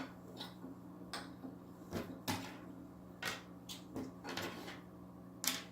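Hard plastic aquarium canister filter parts being handled and set down, giving a series of short clicks and knocks, the loudest near the end. A steady low hum runs underneath.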